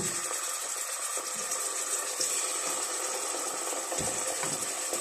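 Steady hiss of chicken cooking in a stainless steel pot, stirred with a wooden spoon, with a soft knock of the spoon against the pot at the start and another about four seconds in.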